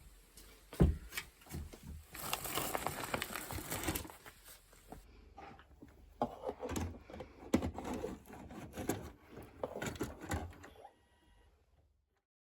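Irregular clicks, knocks and rustling of objects being handled, with a denser stretch of rustling about two seconds in. The sounds stop about a second before the end.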